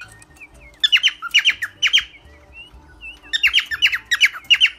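Small caged parrots squawking: two bursts of shrill, sharp calls, four or five quick falling notes each, about a second in and again near the end.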